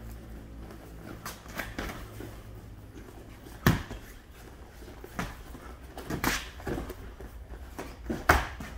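Boxing-glove punches landing during sparring: a scattering of sharp slaps, the loudest about a third of the way in and again near the end, over a low room hum.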